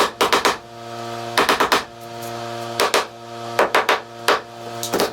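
Hammer blows on wood, struck in quick bursts of two to four, a burst about every second, over a steady low hum.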